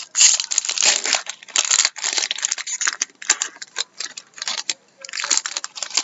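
Foil trading-card pack wrapper being torn open and crinkled by hand: a dense, irregular rustling with short pauses, loudest in the first two seconds and again about five seconds in.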